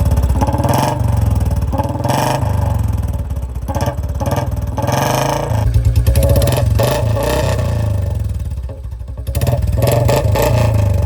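Royal Enfield Bullet single-cylinder engine running loud through a short-bottle aftermarket silencer with a C-bend, a fast beat of exhaust pulses, its engine speed rising and falling.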